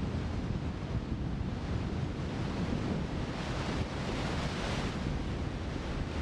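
Strong storm wind rushing and buffeting the microphone in a steady roar, starting abruptly and swelling slightly in the middle.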